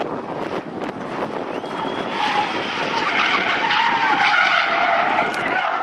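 A car drifting, its tyres screeching in a long skid over the engine, growing louder about two seconds in.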